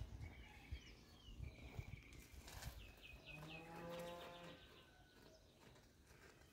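A cow gives one long, low, steady moo about three and a half seconds in, lasting just over a second. Small birds chirp faintly around it, with a quick run of four high chirps just before the moo.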